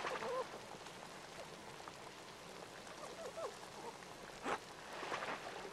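North American river otter eating a fish on the ice: wet crunching and chewing over a steady watery hiss, with a few short squeaks and a sharp crunch about four and a half seconds in.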